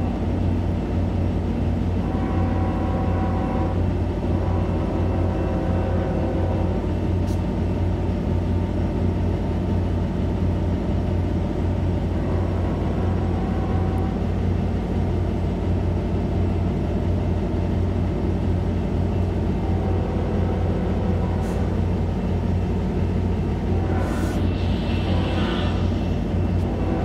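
Amtrak California diesel locomotive standing at idle close by, its engine giving a steady low drone. Fainter higher tones come and go behind it, with a brighter high-pitched sound near the end.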